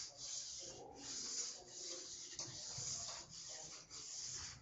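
Ski file held in a 3-degree edge guide scraping along a ski's steel edge in long tip-to-tail strokes, about six strokes of under a second each, sharpening the edge.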